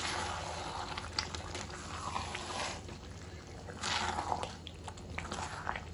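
Wooden spoon stirring yogurt into thick mutton curry in an aluminium kadai: wet stirring strokes that swell twice, with a few light clicks of the spoon against the pan.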